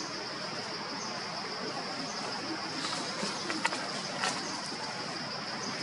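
Steady high-pitched insect chorus, with faint chirps about once a second. A few short clicks or rustles come about three and a half to four seconds in.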